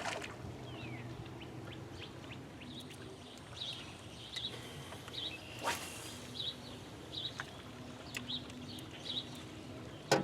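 A small bird chirping over and over, short high chirps coming about once or twice a second, over a faint steady low hum.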